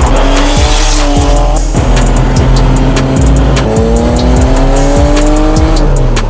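Porsche 930 Turbo's air-cooled flat-six, fitted with a bigger single turbo and a free-flowing exhaust, accelerating hard. The revs climb and then drop back at each upshift, several times over. Music with a steady beat plays underneath.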